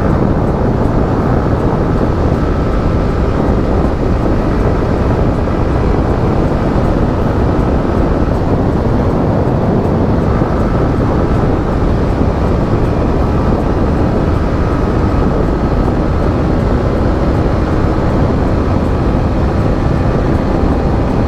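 Steady rush of wind on the microphone of a Yamaha MT-15 motorcycle riding at road speed, with its single-cylinder engine running underneath.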